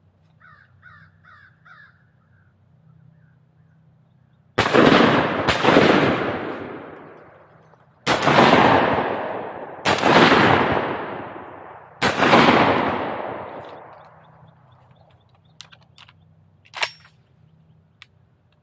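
Five shotgun shots: a quick pair, then three more about two seconds apart, each ringing out and fading slowly. Just before them comes a short run of four or five duck quacks.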